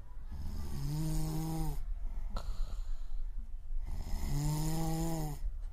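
A person snoring: two long snores of about a second each, about three and a half seconds apart, with a breathy intake of air between them.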